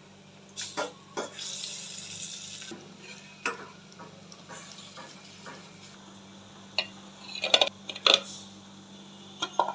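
Metal utensil clinking and knocking against a pan while lentil fritters fry, with a short spell of sizzling oil about a second in and a cluster of sharper clinks near the end.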